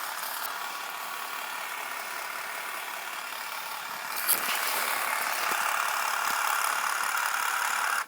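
Small electric motor of a Doctor Dreadful Alien Autopsy toy running with a steady rattly whirr, a little louder from about four seconds in, then switched off abruptly at the end.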